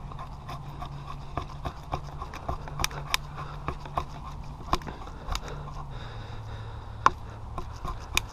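Estwing tomahawk's blade shaving curls off a wooden stick to make feather sticks: many short, irregular scraping strokes and sharp clicks, over a steady low hum. The edge is dull and needs a sharpen.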